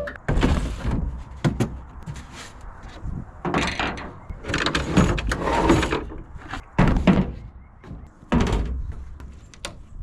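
A string of irregular knocks and clunks, with the loudest ones about half a second, four to six, seven and eight and a half seconds in: tools and gear being handled and moved about.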